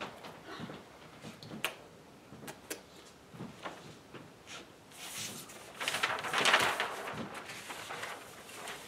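Large sheets of paper rustling and sliding as they are handled and laid out on a table, with scattered light clicks and the loudest, longest rustle about six seconds in.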